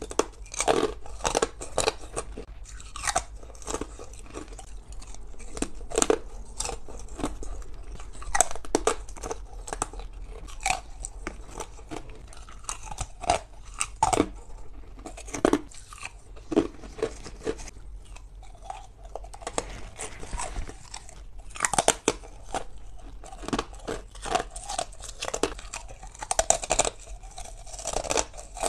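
Hard ice being bitten and chewed: an irregular run of sharp, crisp crunches, one after another, with brief pauses between bites.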